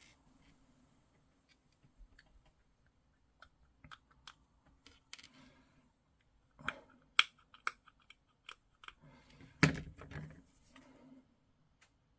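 Hobby sprue cutters snipping a plastic miniature part from its sprue, among small clicks of plastic pieces being handled. The sharpest snaps come about seven seconds in and again near ten seconds.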